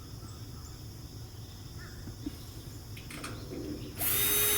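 A few faint handling clicks, then about four seconds in a small cordless drill starts up and runs with a steady whine.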